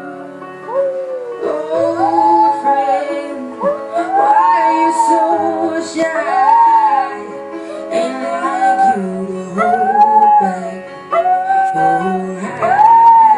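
A dog howling along to a woman's sung ballad: a long run of drawn-out howls that rise and fall in pitch, one every second or two, over the music.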